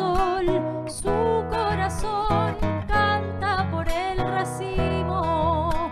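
A woman sings a cueca with vibrato over a nylon-string classical guitar strummed in a steady rhythm.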